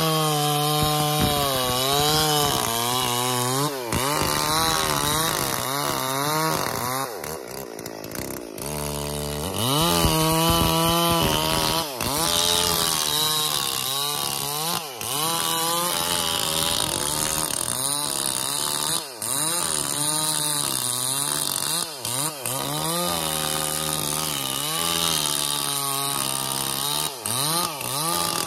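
Stihl MS440 two-stroke chainsaw running at high revs as it cuts through a felled ylang trunk, its pitch rising and falling as the chain bites into the wood. The engine eases off briefly about a quarter of the way in, then revs up again and keeps cutting.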